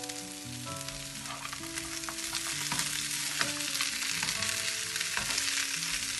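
Potato cubes sizzling as they fry in a nonstick pan, with the scraping clicks of a spatula stirring them. Soft background music with steady held notes plays underneath.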